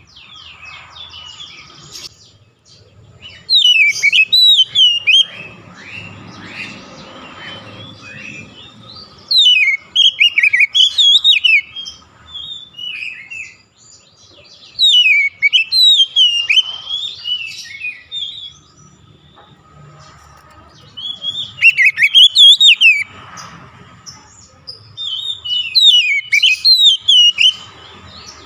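Oriental magpie-robin singing: five loud phrases of quick, varied whistled notes sliding up and down, a few seconds apart, with quieter twittering between.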